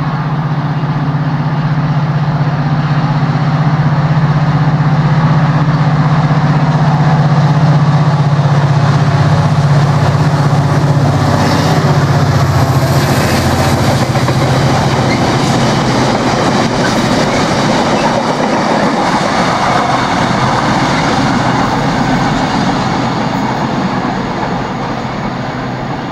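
An Irish Rail 071 class diesel locomotive passes, its EMD 12-cylinder two-stroke engine giving a heavy drone, followed by a long rake of empty ore wagons rumbling and clattering over the rail joints. The engine drone fades about halfway through and the wagon clatter grows, then eases off near the end as the train draws away.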